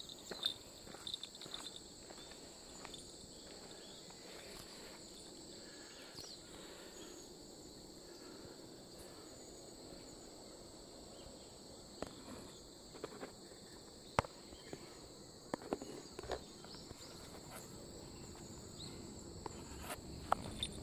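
Insects in the roadside vegetation singing steadily in high, even tones, with scattered light footsteps and small knocks, clustered near the start and again midway through.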